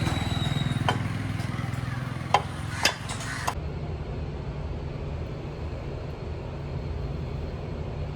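Motorcycle engine running steadily with a fast, even pulse, and a few sharp metallic clicks in the first few seconds. The owner takes the engine's noise for the sign of a problem inside the engine.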